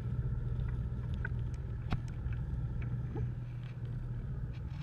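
Low steady hum of a fishing boat's engine, with scattered small clicks and ticks on top.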